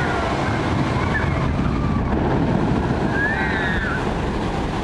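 Steady rush of falling and flowing water on a water-ride flume, as a boat full of riders splashes down the drop near the end.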